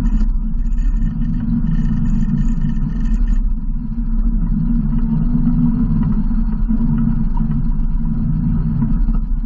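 Yamaha RMAX 1000 side-by-side's parallel-twin engine running steadily at low throttle, a loud low rumble as the machine crawls along a dirt trail.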